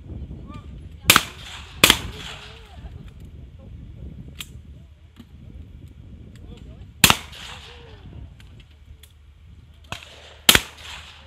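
Shotguns firing at clay targets: two shots about a second in, less than a second apart, a single shot about seven seconds in and another near the end, each with a short echo trailing off.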